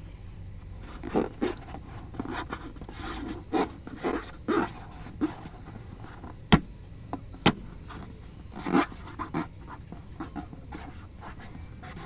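Slime being squished and mixed by hand: irregular squelching and scraping sounds, with two sharp pops about a second apart midway.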